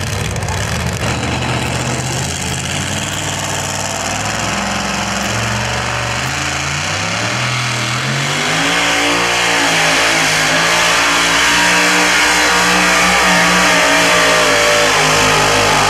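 A two-wheel-drive pulling truck's supercharged engine revving hard, its pitch stepping up and down. It gets louder about halfway through.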